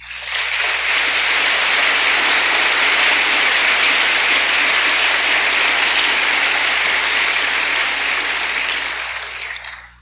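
Audience applauding, swelling quickly at the start, holding steady and dying away near the end.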